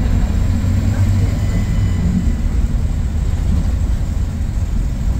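Scania K230UB bus's five-cylinder diesel engine running steadily with a low drone.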